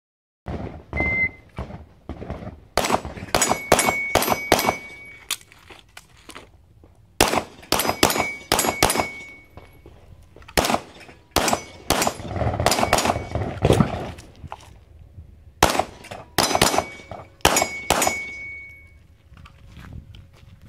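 Handgun fired in several rapid strings of shots at steel plate targets, the hits answered by a short high ringing ping from the steel. The strings are separated by pauses of a second or two.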